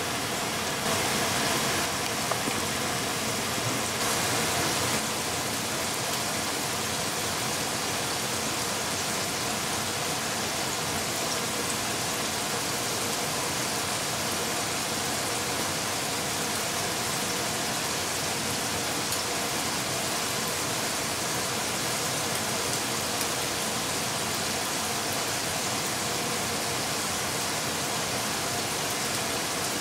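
Chicken wings frying in hot oil: a steady, even sizzle, a little louder in the first few seconds.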